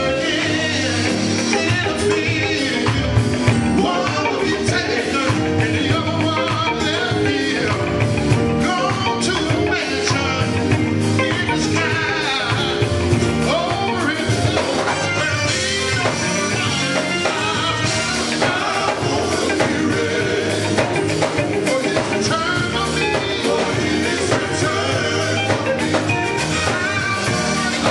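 Live gospel quartet music: a lead singer singing through a microphone, with backing singers, electric guitar and a drum kit playing a steady beat, amplified through the church's PA speakers.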